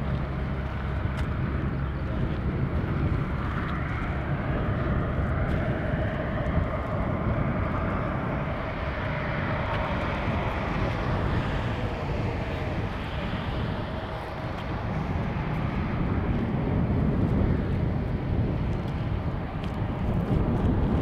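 Airbus A350-1000's Rolls-Royce Trent XWB turbofans running at taxi power as the airliner rolls slowly and turns: a steady jet whine over a low rumble, its pitch drifting gently as the aircraft swings round.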